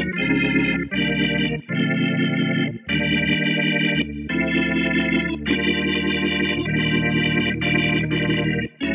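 Sampled Hammond-style tonewheel organ from Native Instruments' Vintage Organs plugin, playing a run of held chords separated by short breaks.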